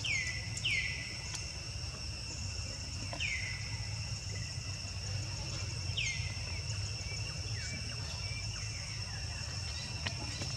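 Steady, high-pitched drone of insects, with a handful of short calls that fall sharply in pitch, about five in all, spaced unevenly. A low rumble sits underneath, and there are a few sharp clicks near the end.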